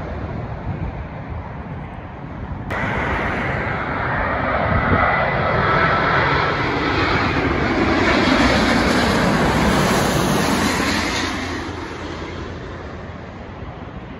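Distant jet rumble, then an abrupt cut to a twin-engine jet airliner on final approach passing low overhead. The engine noise swells to a peak midway, with a faint whine, then fades away.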